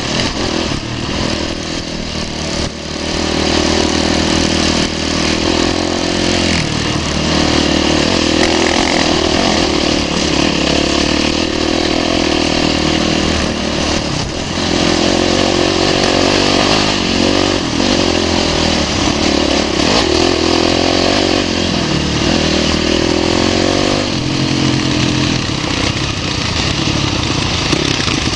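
Dirt bike engine running hard under way, the revs climbing and easing off again and again as the bike is ridden, with a few short lulls.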